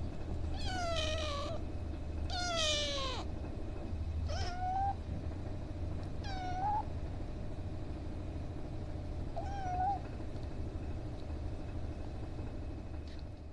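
Young ginger-and-white kitten meowing about five times, with a faint sixth call near the end. The first two meows are the longest and loudest and fall in pitch; the later ones are short, rising then falling.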